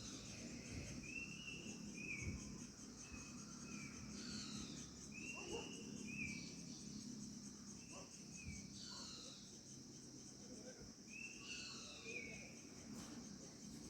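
Faint evening chorus of birds: many short, repeated whistled calls and several falling notes, over a steady high chirring of insects.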